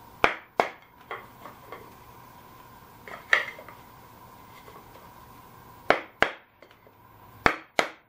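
Sharp blows struck through a wooden block against the cast transmission housing of a BCS 725 two-wheel tractor, to knock loose a stuck rear cover. There are about nine short knocks, many in quick pairs.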